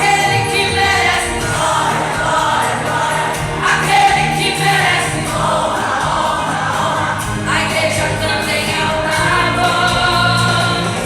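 Choir singing a gospel worship song with musical accompaniment, continuous and full.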